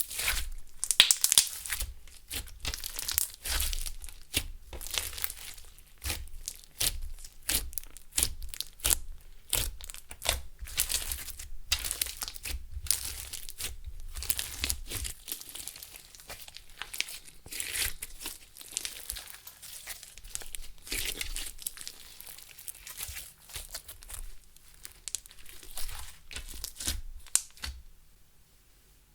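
Clear slime with makeup and glitter mixed in, being kneaded and squished by hand: a dense, irregular run of sticky clicks and crackles that stops about a second before the end.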